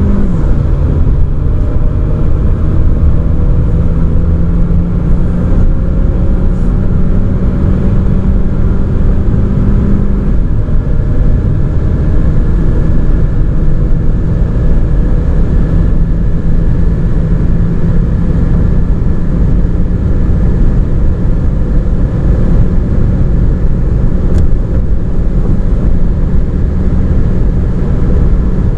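Cabin sound of a 2014 Audi A3's 1.4 TFSI turbocharged four-cylinder engine pulling at full throttle at high speed. The 7-speed S tronic dual-clutch gearbox upshifts right at the start and again about ten seconds in. At each shift the engine note drops in pitch, then climbs slowly as revs build again.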